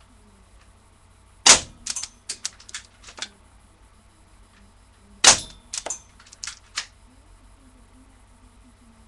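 Airsoft pistol fired twice, a sharp snap about a second and a half in and another about five seconds in, each followed by a quick run of smaller clicks and ticks.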